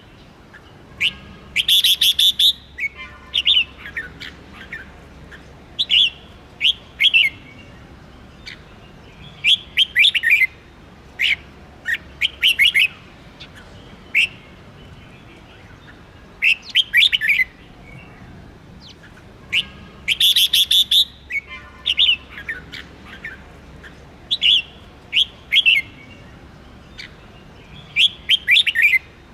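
Red-whiskered bulbul singing, short bright phrases of chirping notes coming every second or two, with a louder burst near the start and again about two-thirds of the way through.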